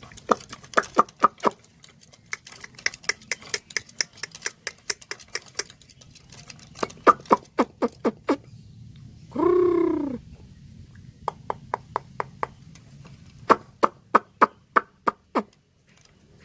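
Sulawesi imperial pigeon (kum kum) giving one deep, arching coo about ten seconds in. Around it come several quick runs of sharp clicks, roughly eight a second, which start and stop in bursts.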